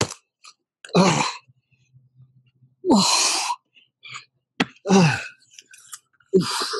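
A man's forceful exhalations and grunts of effort, four of them about two seconds apart, each dropping in pitch, the strain of doing burpees with a push-up and shoulder press while holding a sandbag.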